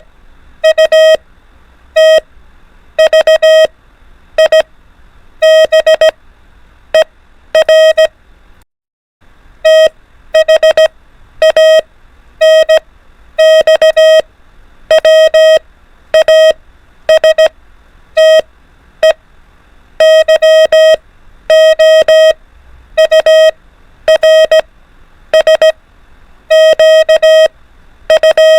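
Morse code practice tone keyed at 24 words per minute: a steady mid-pitched beep switched on and off in short dots and longer dashes, sending groups of alphabet letters, with a brief silent break about nine seconds in.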